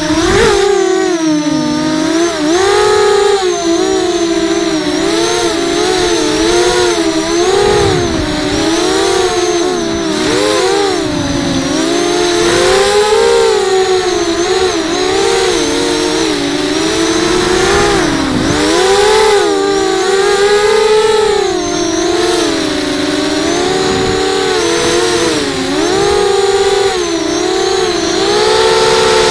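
Brushless motors and propellers of an FPV racing quadcopter, heard from its onboard camera, whining in several close pitches that constantly rise and fall as the throttle changes in fast, low flight.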